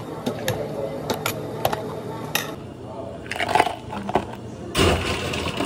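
Bubble tea being assembled in clear plastic cups: light clicks and knocks of a scoop against the cups as tapioca pearls go in, then ice clattering into a plastic cup a little over three seconds in, with a louder clatter near the end.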